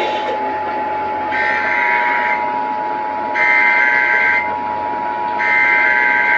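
Emergency Alert System SAME header: three bursts of shrill digital data tones, each about a second long and about a second apart, over a steady alert tone that another receiver is sounding.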